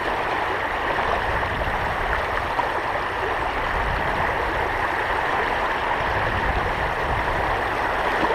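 Creek water rushing steadily in a strong current.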